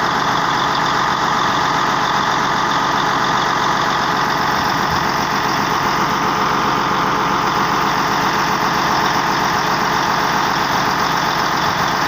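CAT D8R bulldozer's diesel engine running steadily at an even, unchanging level.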